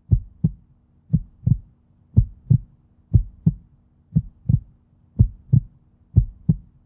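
Heartbeat sound effect: low double thumps, lub-dub, about once a second, seven beats in all, over a faint steady hum.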